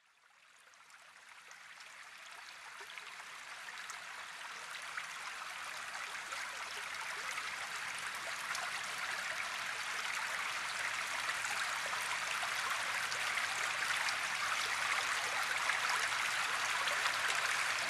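Steady rush of running stream water fading in from silence and growing louder throughout. A faint low tone joins about two-thirds of the way through.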